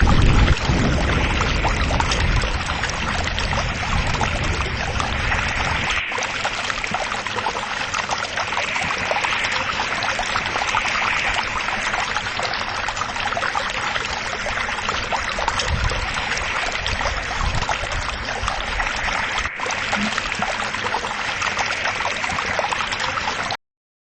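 Steady rush of flowing water, as around a canoe drifting in a current, with two brief clicks, about six seconds in and near the end.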